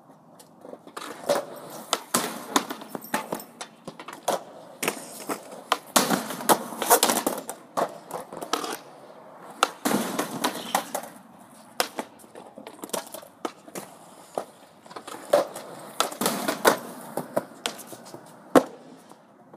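Skateboards on concrete: wheels rolling over the pavement, with many sharp clacks of boards popping, landing and slapping down throughout.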